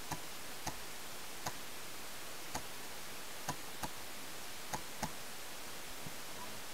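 Paintball markers firing off in the field: scattered single sharp pops, about eight in all at uneven spacing, two of them in quick pairs, over a steady hiss.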